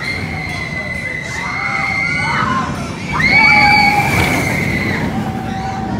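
A steel roller coaster train running past on its track, its wheels rumbling, while the riders scream in long, high, held cries that grow louder about three seconds in.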